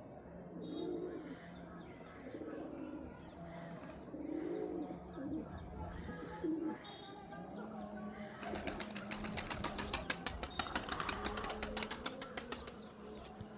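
Domestic pigeons cooing in low repeated phrases, then from about eight seconds in a rapid clatter of flapping wings.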